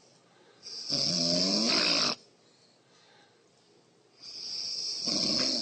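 A woman snoring in her sleep: two long snores about three seconds apart, each lasting about a second and a half.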